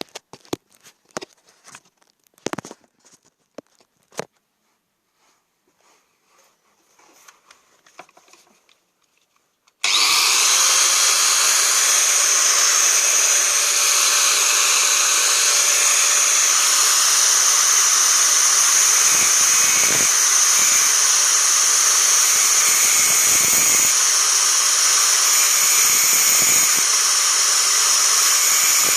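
A few handling knocks and clicks, then about ten seconds in an angle grinder switches on and runs steadily with a loud, high, hissing whine as it grinds the teeth of a saw blade.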